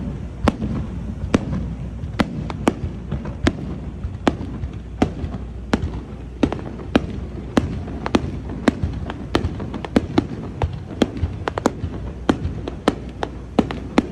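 Fireworks display: aerial shells bursting overhead in a rapid, irregular series of sharp bangs, about two a second, over a steady low background noise.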